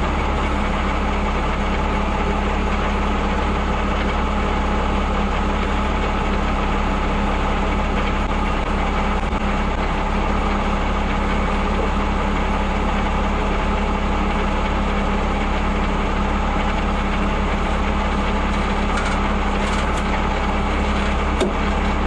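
Engine of an M35 'Reo' 2½-ton army truck running steadily at an even pitch. A few light clicks or knocks sound near the end.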